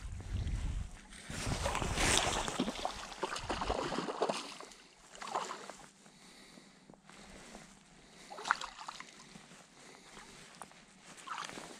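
Water splashing and sloshing around a hooked rainbow trout being brought to the net, heaviest in the first four seconds, then a few short splashes.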